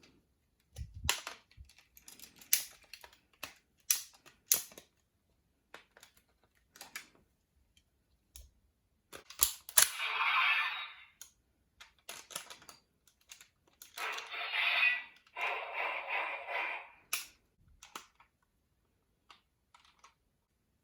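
Folded-paper toy pieces being handled: a series of sharp clicks and taps, with rustling swishes about ten seconds in and again from about fourteen to seventeen seconds.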